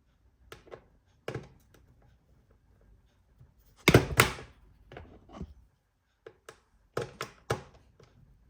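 Sharp clicks and knocks of hard plastic and metal laptop parts being handled during a drive swap, about a dozen separate strikes, the loudest pair about four seconds in.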